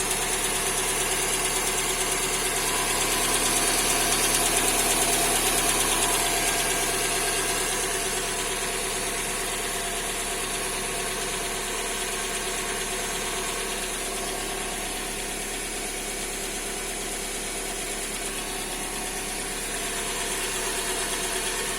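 Hyundai/Kia G4GC 2.0-litre four-cylinder petrol engine running steadily, with a ticking knock from one side of the engine that the owner cannot explain.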